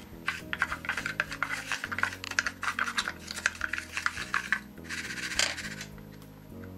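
Small plastic spoon stirring loose model coal and powder glue in a clear plastic box: quick gritty scrapes and clicks, then a brief steadier hiss of shifting grains about five seconds in.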